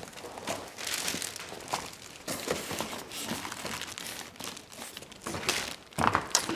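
Packaging being handled and crumpled, with irregular crinkling rustles and a louder crinkle about six seconds in.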